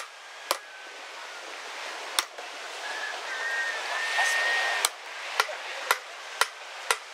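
Hammer striking a chisel driven into a wooden board: about seven sharp taps, spaced out at first, then about two a second near the end.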